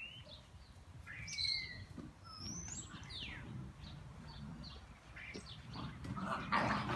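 Small birds chirping with short, quick whistle notes, some rising and some falling. About six seconds in, louder scuffling noise starts from the puppies playing.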